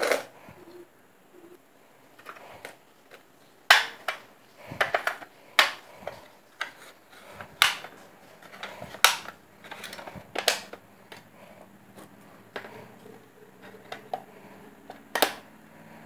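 Compartments and flaps of a Hello Kitty jumbo pencil box being pushed shut and the box handled and turned over. It gives an irregular series of sharp clicks and knocks of hard plastic.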